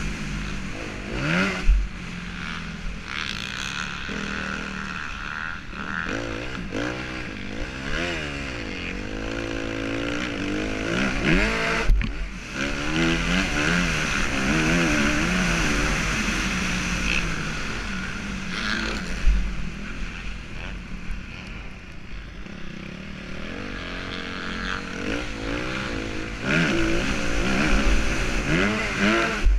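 Motocross dirt bike engine revving up and down as the rider works the throttle around the track, over steady wind rush on the bike-mounted camera microphone. A few sharp knocks come from the bike landing on bumps, the loudest about twelve seconds in.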